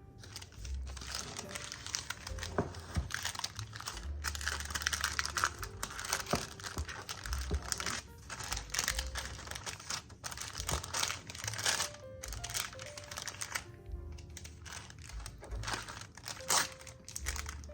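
Background music over irregular crinkling and rustling from hands working peanut butter filling into a pan of fudge and swirling it.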